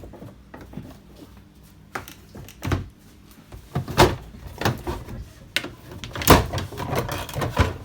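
Irregular knocks and clunks, about seven of them, from handling the washing machine's body and panel, the loudest about four and six seconds in.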